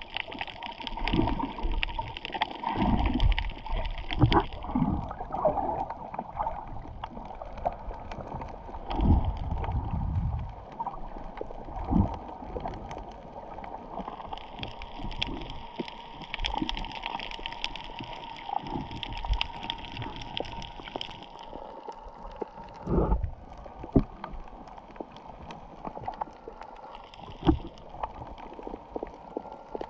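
Water sloshing and gurgling, heard muffled through an underwater camera, with irregular low thumps and an upper hiss that fades out and returns.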